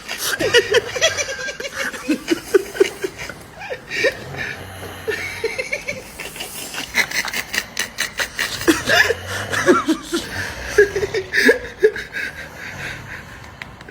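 Laughing in short repeated bursts of chuckles and snickers.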